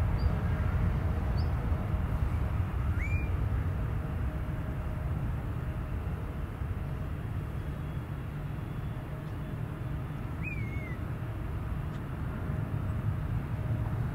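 Distant low rumble of a Boeing 757-300's twin jet engines at takeoff power as the airliner lifts off and climbs away. It is strongest at first, eases off, then swells again near the end. Birds call over it: a few short high chirps in the first two seconds, then two longer calls that glide in pitch, about three and ten seconds in.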